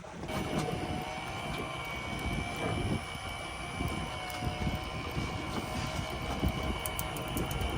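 Boat motor running steadily, a constant whine over a choppy low rumble, as of wind on the microphone.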